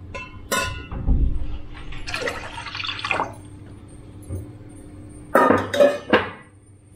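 Water being poured into an aluminium pressure cooker over washed split moong dal, splashing for about a second, with a click near the start. Three sharp metal clinks against the pot near the end are the loudest part.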